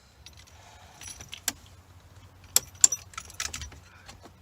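Light clicks and rattles of dashboard parts and tools being handled while a vehicle's dash is taken apart. Sharper clicks come about a second and a half in, and twice just under three seconds in.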